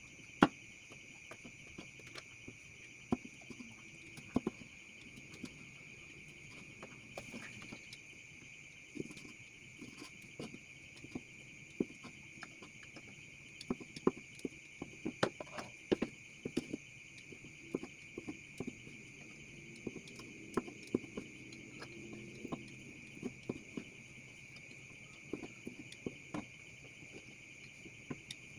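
A kitchen knife tapping and chopping on a wooden cutting board in short, sharp, irregular strokes while slicing mushrooms and dicing meat. A steady high-pitched trill carries on underneath.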